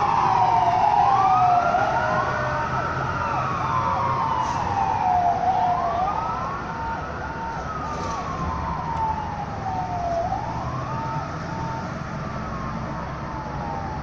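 Emergency vehicle's electronic siren wailing, a slow fall and quicker rise in pitch repeating about every four seconds, getting quieter as the vehicle drives away, over low traffic rumble.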